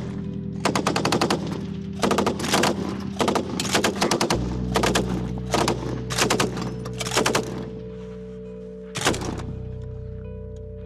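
Tripod-mounted belt-fed machine guns firing a rapid run of short bursts at range targets for about seven seconds, then one more short burst near the end.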